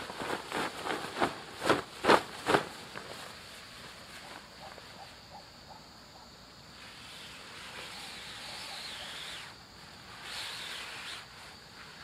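Nylon hammock fabric swishing and flapping in a quick series of strokes as it is gathered up by hand, loudest about two seconds in. Later come two longer swishes as a fabric storage sleeve is slid along the hammock.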